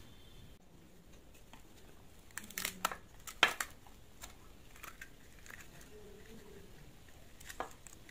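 Screwdriver prying the round perforated grille off an old metal-cased speaker: a cluster of sharp scrapes and cracks a third of the way in, the loudest just before the middle, then lighter scattered scrapes and one more sharp crack near the end.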